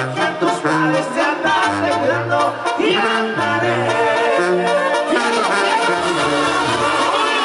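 Banda sinaloense brass band playing live: sousaphone bass line under trumpets and clarinets, with percussion.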